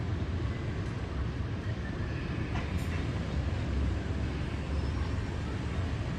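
Steady low rumble of distant city traffic on wet streets, mixed with wind noise.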